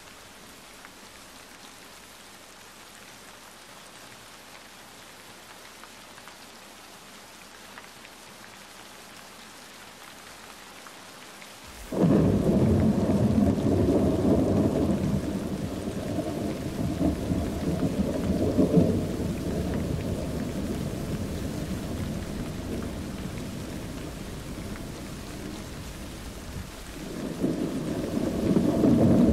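Steady rain hiss, then about 12 seconds in a loud roll of thunder starts suddenly and rumbles on, slowly fading, before building again near the end.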